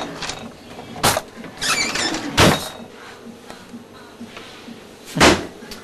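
Household things being moved and bumped while rummaging for something: three sharp knocks and a brief squeak.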